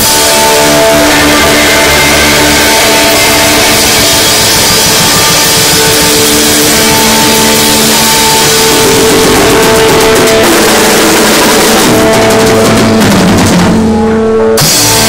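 Rock band playing loud in rehearsal: drum kit and electric guitar in an instrumental passage, with no singing. Near the end the playing thins out and the song closes on a final hit.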